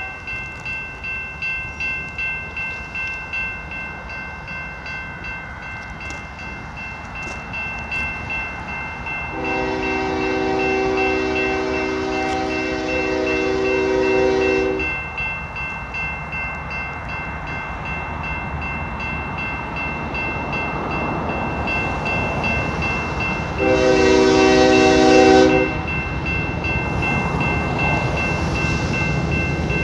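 A grade-crossing bell rings steadily while an approaching diesel freight locomotive sounds its horn: one long blast about a third of the way in and a shorter one near the end. The train's rumble grows as it nears the crossing.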